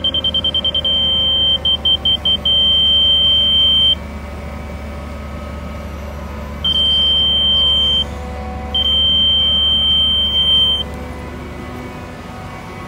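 Laser level receiver sounding a high electronic tone: rapid beeping at first, then a steady unbroken tone in several stretches of one to two seconds with pauses between, the on-grade signal that the receiver sits at the laser beam's height. A low steady rumble runs underneath.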